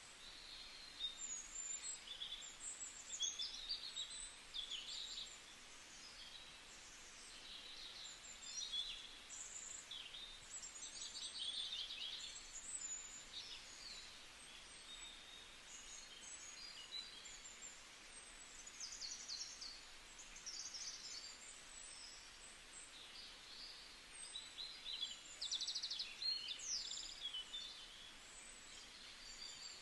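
A forest chorus of several birds singing and calling over one another: quick high chirps, trills and short whistled calls, coming and going throughout, over a faint steady hiss.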